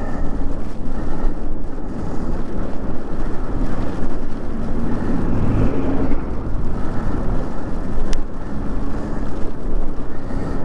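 Daymak Pithog Max electric e-bike riding through slush in a snowstorm: steady rushing wind and tyre noise, with a short sharp click about eight seconds in.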